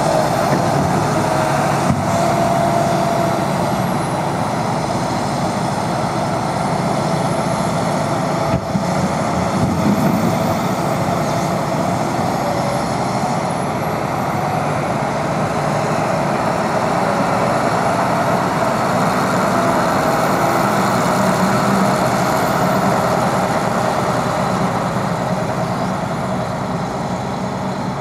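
Liebherr 926 crawler excavator's diesel engine running steadily under load, with a wavering hydraulic whine over it as the machine slews and works its bucket in soil.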